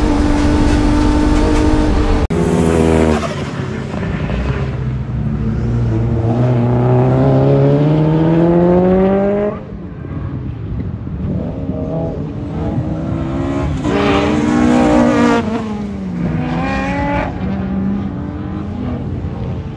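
BMW E36's M54B30 3.0-litre straight-six at racing speed on track: a long steady climb in revs, a sudden lift about halfway through, then shorter bursts of acceleration and easing off. About two seconds in, the whole sound changes abruptly.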